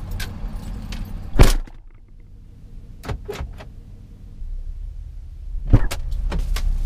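Pickup truck's driver door slammed shut about a second and a half in, the loudest sound, after which the low outside rumble is muffled; near the end the door is opened again with a second knock and the rumble comes back.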